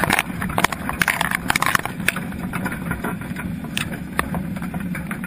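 Underwater sound from a GoPro inside a crab trap: Dungeness crabs clicking and scraping against the camera housing and wire cage, the clicks thick for about the first two seconds and then scattered, over a steady low drone.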